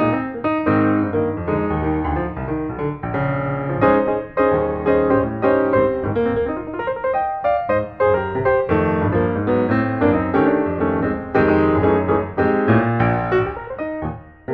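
Piano music: a fast, busy stream of piano notes.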